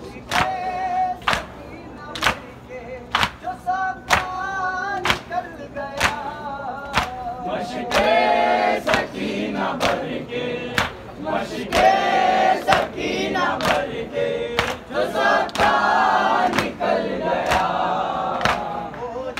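A group of men chanting a Muharram noha in chorus. Their open hands strike their chests in unison (matam) in a steady rhythm of sharp slaps. The singing grows louder about halfway through.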